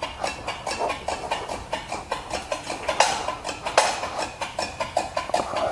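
Hydraulic transmission jack being pumped up, its pump mechanism giving a quick, steady run of clicks, several a second, with a couple of louder knocks about three and four seconds in.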